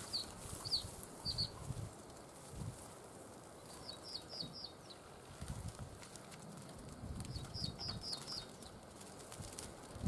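Footsteps crunching through dry grass, with rustling as he works low at the net, while small finches give short high chirps in quick runs of three or four.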